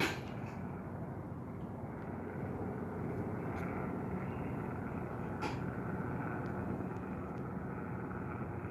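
Airplane engine noise from a plane passing overhead: a steady rumble with a faint whine in it. A short click comes at the very start and another about five and a half seconds in.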